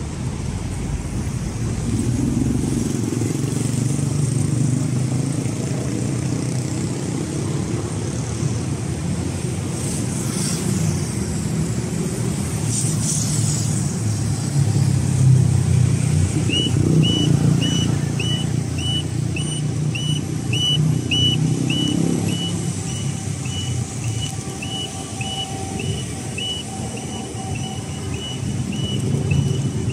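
Road traffic running past at a city intersection. About halfway through, a pedestrian crossing signal starts beeping: a short high beep about twice a second, the audible signal that the walk phase has begun.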